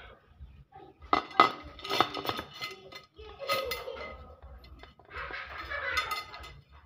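Steel motorcycle spokes clinking against a chrome rim and each other as they are threaded by hand through the hub and rim holes during wheel lacing: a series of sharp, separate metallic clinks, the loudest a little after a second in and around two seconds in.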